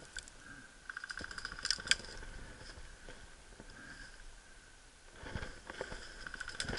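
Two spells of rapid, evenly spaced ticking, about a second in and again near the end, typical of an airsoft electric rifle firing short full-auto bursts, over a faint rustle of dry brush and grass.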